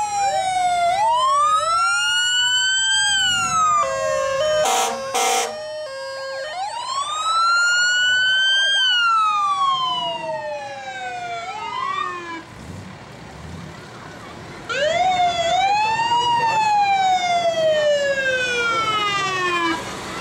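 Fire truck siren wailing, its pitch climbing and falling in long sweeps, with a burst of short blaring horn blasts about four seconds in. The siren cuts off around twelve seconds in and starts wailing again about three seconds later.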